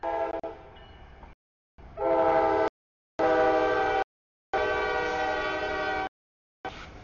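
CSX freight locomotive horn sounding a series of blasts for a grade crossing: three shorter blasts, a longer one, then another starting near the end.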